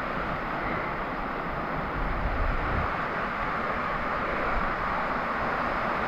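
Steady rush of water from a small waterfall and stream running over rocks.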